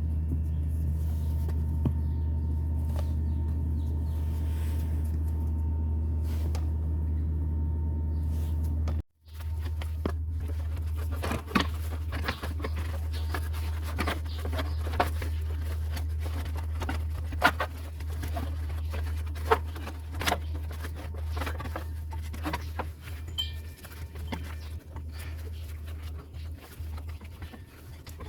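Isuzu Reward truck engine running at a steady idle with a low hum, cutting out abruptly about nine seconds in and returning a second later. After that, irregular sharp clicks and short chirps sound over the idle.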